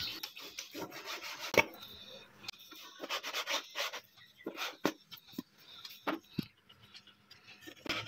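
Kitchen knife slicing horizontally through raw boneless chicken breast on a plastic cutting board: faint, irregular scraping strokes of the blade, with a sharper tap of the knife on the board about a second and a half in.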